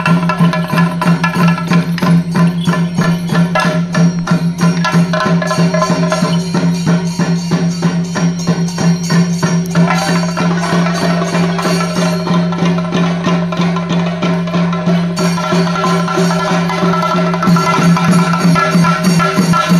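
An ensemble of chenda drums beaten with sticks in a fast, dense traditional rhythm for Kerala thira ritual dance, over a steady low drone. A higher pitched line joins about halfway through.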